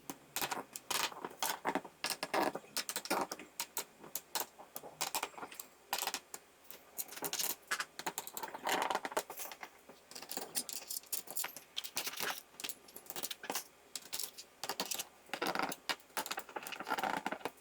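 Small metal screws and a screwdriver clicking and rattling against a laptop's plastic bottom panel as the panel screws are put back in, in quick irregular clicks throughout.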